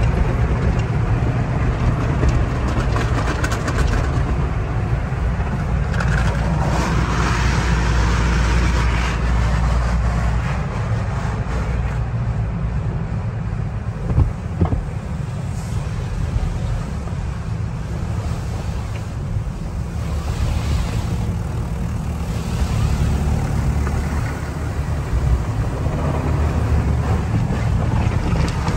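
Tunnel car wash machinery heard from inside the car: a steady low rumble with water spray and cloth brushes and curtains washing over the body, swelling and fading as the equipment passes, and a single knock about halfway through.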